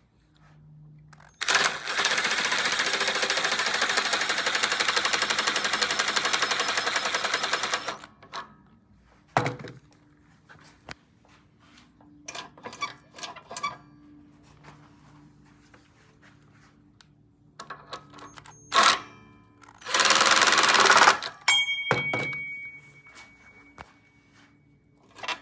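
A power tool with a rapid hammering action, such as an impact wrench, drives a homemade socket-on-a-tube tool in two bursts: a long one of about six seconds, then a short one of about a second and a half near the end. Metal clicks and clinks from the tool and parts come between the bursts.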